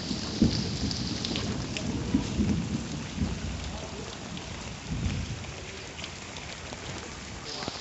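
Steady rain falling, with close drops ticking and a low rumble of thunder beneath that swells twice and slowly dies away.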